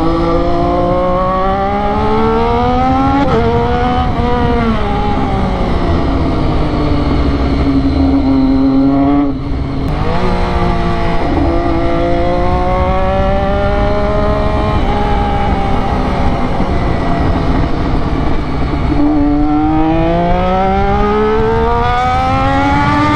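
Triumph Daytona 675's three-cylinder engine through a loud aftermarket sport exhaust, revving up and down under way. The revs climb and drop several times in the first few seconds, sink slowly through the middle, and climb again near the end.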